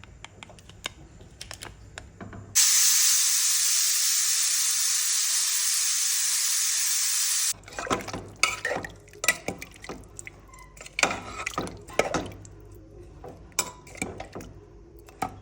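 Kitchen clatter of utensils and dishes. About two and a half seconds in, a steady, loud hiss starts abruptly and runs for about five seconds before cutting off sharply; then the clinking and clattering go on.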